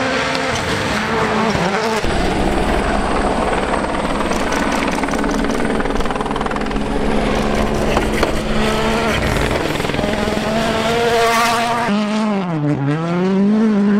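WRC Rally1 cars at full speed on gravel, their turbocharged four-cylinder engines revving hard, the engine note rising and falling with gear changes and lifts. Near the end one car's note drops sharply and climbs again.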